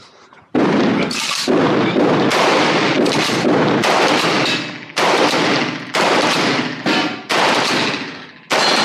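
A string of about a dozen shotgun shots fired in quick, uneven succession, roughly half a second to a second apart, each with a long echoing decay. They start about half a second after the shot timer's beep.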